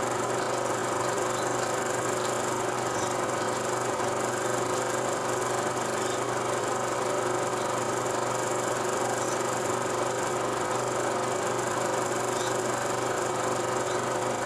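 Steady mechanical hum and hiss with several constant tones, unchanging throughout.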